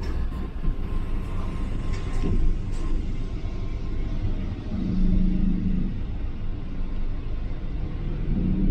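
Shuttle bus running at low speed, heard from inside the passenger cabin as a steady low engine and road rumble.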